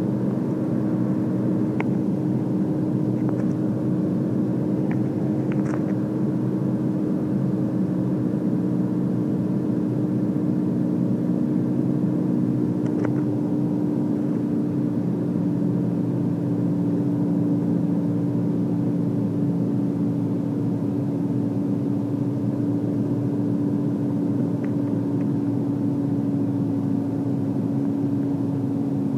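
Light single-engine piston plane's engine and propeller droning steadily in the cockpit during the approach to landing, with a steady hum that drifts slightly lower over the span. A few faint clicks sound over it.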